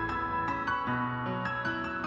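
Gentle instrumental background music: a melody of short notes over held low notes.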